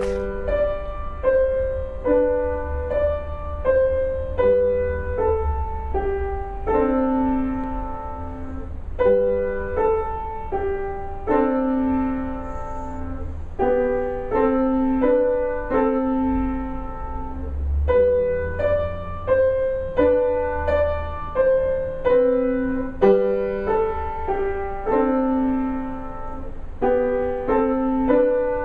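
Piano playing a simple piece from a lesson book: mostly single notes and two-note chords in the middle register at a moderate, even pace, each note struck and left to fade. A low rumble runs underneath.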